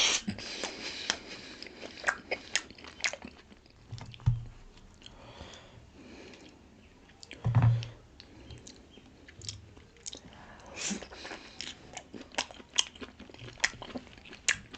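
A person chewing and biting into steamed pork momos close to the microphone: many sharp mouth clicks and wet chewing, with a couple of low thumps about four and seven and a half seconds in.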